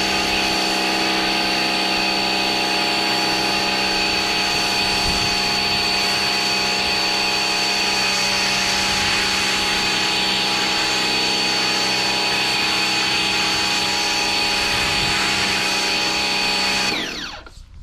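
Bosch Aquatak 110 electric pressure washer running steadily under load, its motor pump humming with a high whine over the hiss of spray through the foam lance. Near the end the motor winds down and stops.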